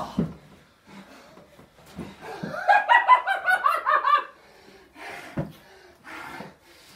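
A burst of high-pitched laughter, a quick run of 'ha-ha-ha' pulses lasting about a second and a half, followed a second later by a single thud.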